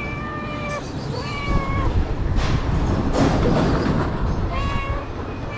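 Stray cat meowing three times, short calls near the start, about a second in and near the end. A rushing noise swells in the middle.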